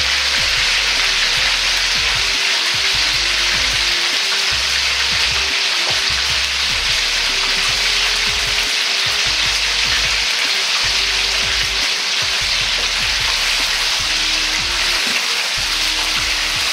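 Chicken karaage deep-frying in oil heated to about 180 °C in a wok for the second fry: a steady, dense sizzle of many bubbles, the busy high sizzle that signals the oil is at the right temperature.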